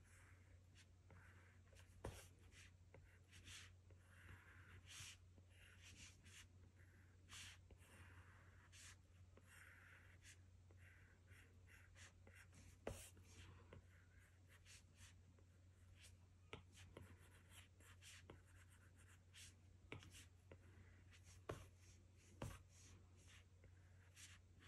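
Apple Pencil tip stroking on an iPad Pro's glass screen as lines are drawn: faint short scratching swipes with a sharp tap every few seconds, over a low steady hum.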